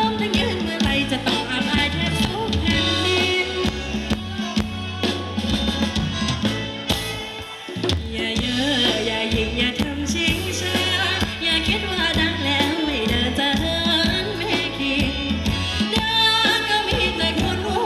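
Live band playing upbeat Thai ramwong dance music with a steady drum beat; the music drops back briefly about seven and a half seconds in.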